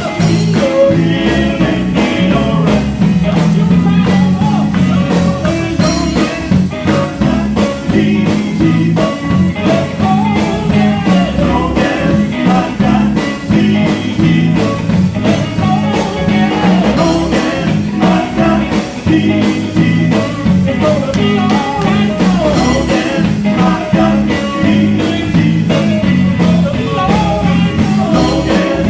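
Live gospel group music: singing over electric guitar and drums with a steady beat.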